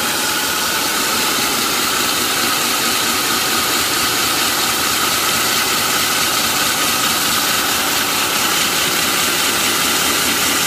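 Stand-mounted electric diamond core drill with a large wet core bit running steadily with an even whine, grinding down through asphalt, the bit cooled with water.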